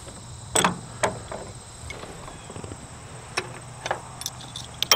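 Scattered metal clicks and clinks of an adjustable wrench on the bolts of a 1955 Oliver square baler's knotter: a couple of single clicks in the first second, two more past the middle, and a quick run of clicks near the end.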